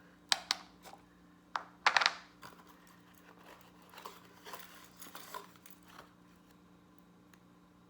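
Small plastic items being handled: a few sharp clicks and taps over the first two seconds, the loudest cluster about two seconds in, then softer rustling and light knocks that die away after about six seconds. A faint steady hum runs underneath.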